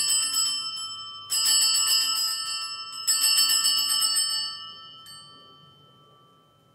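Altar bells, a cluster of small bells, shaken in three jangling rings about one and a half seconds apart, the last one ringing out and fading over about two seconds. Rung at the elevation of the host just after the words of consecration.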